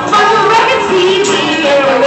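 A young boy singing a 1950s classic into a handheld microphone over a musical accompaniment.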